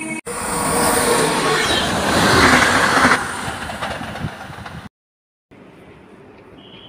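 Passenger train passing close by at speed: a loud rush of wheel and air noise that swells for about two seconds and then tails off. After a short dead gap, a much quieter steady station background follows.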